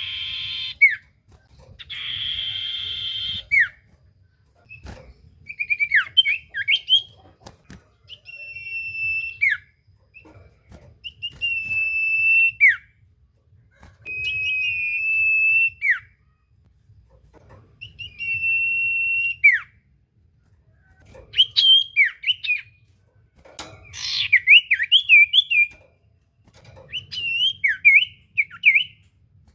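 Common iora (cipoh) singing: two harsh buzzing calls at the start, then phrase after phrase of a steady, high whistle held about a second that drops away at its end, mixed with quick chattering trills.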